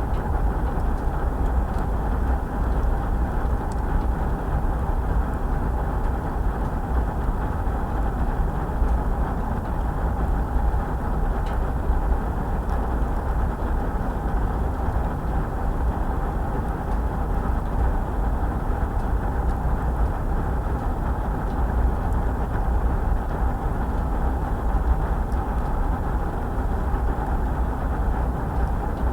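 Air being drawn into a fire: a steady low rushing draught with no let-up, with a few faint ticks now and then.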